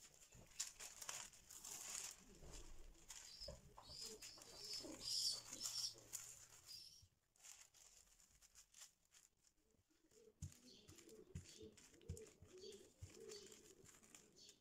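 Faint crinkling and rustling of a plastic bag being handled over dough for the first half. In the second half, a pigeon coos softly in the background, with a few light knocks as a rolling pin works the dough.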